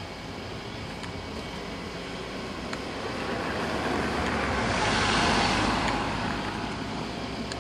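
Car driving slowly over a packed-snow road: a steady engine rumble with tyre noise, swelling to its loudest about five seconds in, then easing off.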